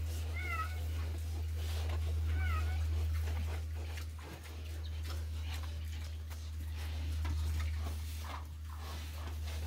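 Young pigs in a pen giving two short, wavering high squeals in the first few seconds, with scattered clicks and scuffs as they move about, over a steady low rumble.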